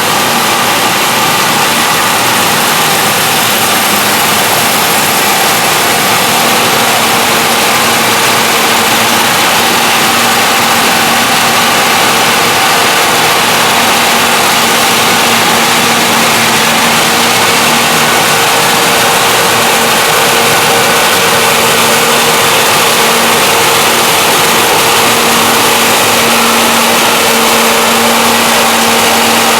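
John Deere 6620 combine running steadily while harvesting corn: its diesel engine and threshing machinery make a constant loud drone with a faint steady whine.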